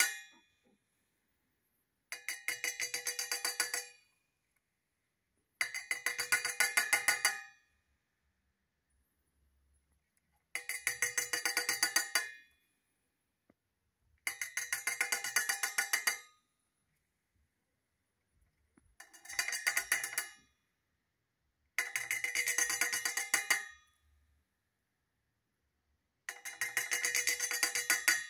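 Cockatiel tapping its beak rapidly against the inside of a stainless steel cup, the metal ringing with each tap. The taps come in volleys of about two seconds, seven times, with short pauses between.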